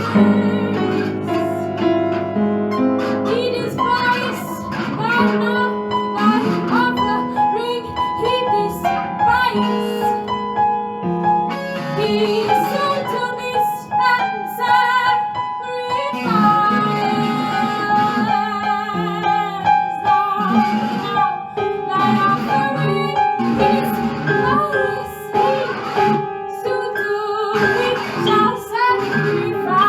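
Experimental ensemble music: female voices singing long held notes with vibrato over piano and effects-processed guitar, with many short struck and plucked notes throughout.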